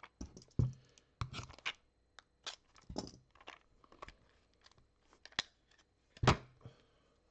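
Plastic wrapping of a trading-card mystery pack being torn open, then the cards pulled out and handled: a run of irregular crinkles and sharp crackles, the loudest about six seconds in.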